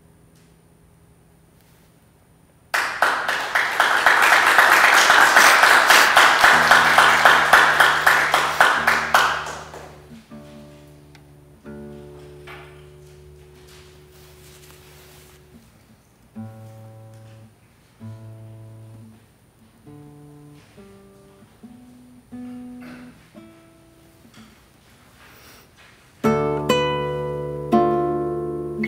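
Classical nylon-string guitar played solo. After a few nearly quiet seconds comes a loud burst of fast strumming lasting about seven seconds, then single notes and soft chords picked sparsely, and louder plucked chords near the end.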